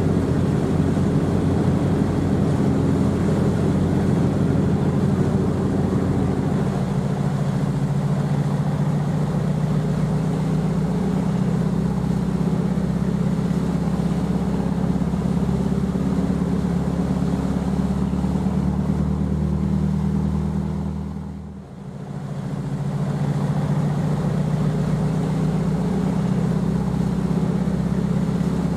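Ferry's engines running with a steady low drone and hum. The sound dips away briefly about three-quarters of the way through and comes back at the same steady level.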